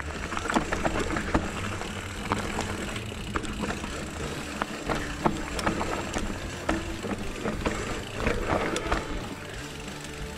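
Electric mountain bike descending a rough dirt trail: tyres rumbling over the ground, with frequent sharp knocks and rattles as the bike hits roots and rocks.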